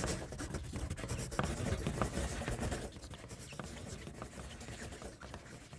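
Many pencils scratching on paper at once as a class writes a test, slowly growing fainter.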